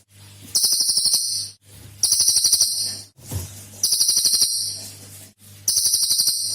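A cililin songbird giving its rapid 'shooting' call: four very high, fast-pulsed trilled bursts, each about a second long, repeated about every one and a half seconds. A faint steady low hum lies under them.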